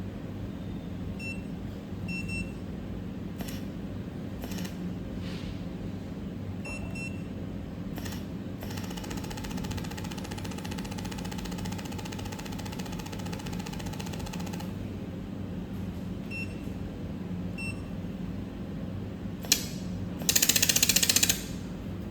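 A QCW300W fiber laser welding machine hums steadily, with a few faint short beeps and a softer rhythmic buzz for several seconds midway. Near the end comes a click, then a loud, rapid train of even pulses lasting about a second: the pulsed laser firing on metal as it welds.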